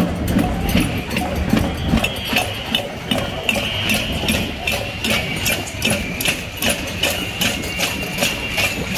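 A marching crowd banging on pots and pans: a dense, irregular clatter of metal strikes, several a second, over the steady noise of many people moving.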